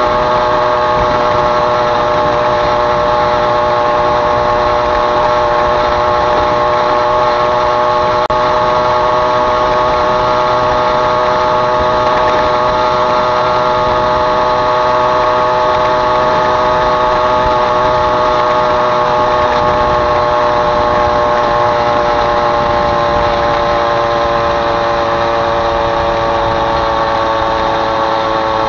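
Small moped engine running steadily under way, its pitch easing down slightly over the last few seconds.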